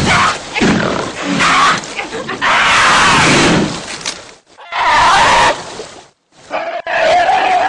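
A bear and a cougar growling at each other in a standoff: loud, rough growls in several long bursts, with short breaks about four and a half and six seconds in.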